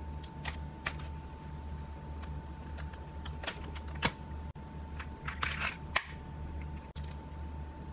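Irregular light clicks and taps, about eight of them, over a steady low hum and a faint steady high tone, with a brief hiss about five and a half seconds in.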